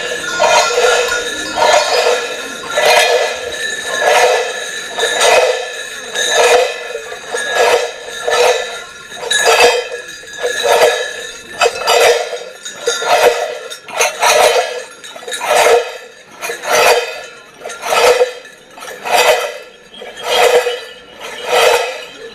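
Many heavy cowbells worn on the backs of Mamutzones carnival masks clanging together, surging in a steady rhythm about once a second as the dancers jump in step.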